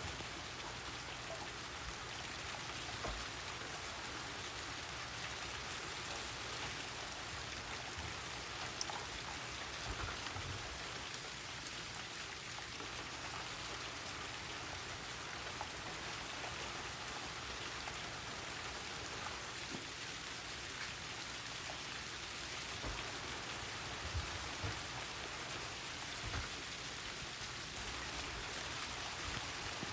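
Steady rain falling and pattering on surfaces, an even hiss with occasional heavier drops tapping now and then.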